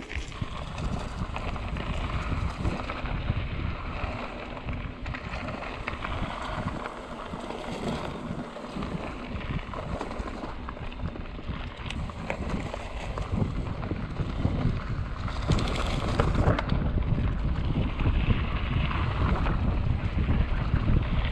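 Wind buffeting the microphone of an action camera carried on a moving mountain bike, with rumbling trail and tyre noise underneath; it grows a little louder in the second half.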